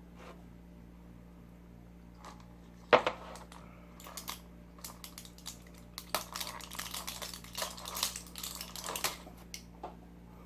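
Close-up crinkling and clicking of packaging being handled. There is one sharp click about three seconds in, then dense crackling and clicks for about five seconds.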